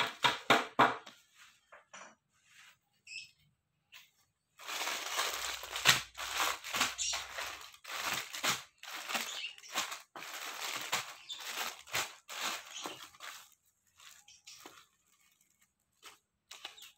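Clear plastic packets crinkling and rustling as they are handled. There is a short run of quick crackles at first, then almost continuous rustling from about four and a half seconds in until near the end, which thins to a few scattered rustles.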